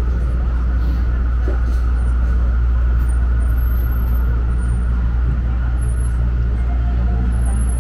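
City street traffic: a steady low engine rumble from vehicles on the avenue, with no sudden sounds.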